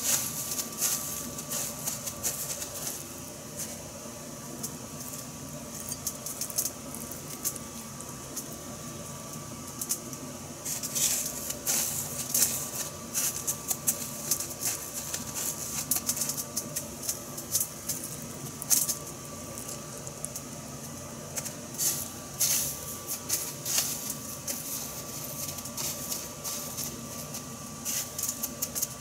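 Panko breadcrumbs being pressed and patted onto battered beef cutlets in a metal tray, giving dry, crisp rustling and crackling in irregular spurts. A steady faint hum runs underneath.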